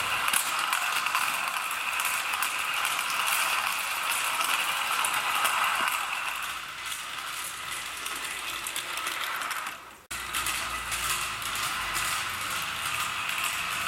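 Mamod SL1 live-steam model locomotive running around its track: a fast, even mechanical rattle of chuffing and clattering running gear. The sound dips and cuts back in about ten seconds in.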